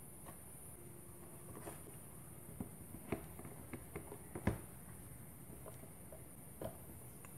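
Light handling noises from a clear plastic speaker box being turned over and set down on a cutting mat: a scatter of small clicks and taps, with one louder knock about four and a half seconds in.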